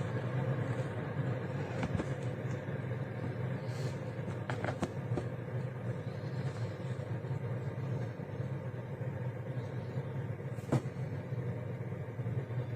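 A steady low mechanical hum, with a few light clicks along the way.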